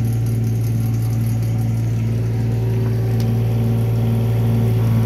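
Kubota mini excavator's diesel engine running steadily, with the hum of its hydraulic drive head turning a steel screw pile into the ground.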